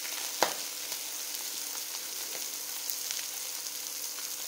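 Beef and bacon patties sizzling in an electric frypan, the fat bubbling with a steady hiss and scattered small pops. One sharp click sounds about half a second in.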